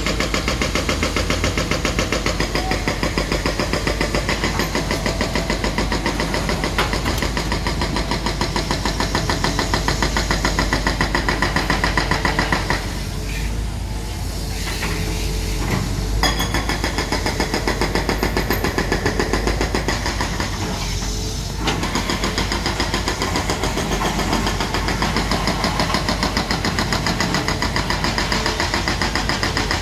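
Diesel engine of a CAT M315D2 wheeled excavator running steadily as it works, with a rapid even beat. About halfway through the higher part of the sound drops away for a few seconds, and again briefly a few seconds later.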